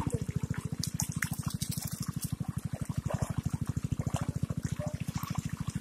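A small engine running steadily, with a rapid, even low thudding of about ten beats a second, over the sound of gushing water.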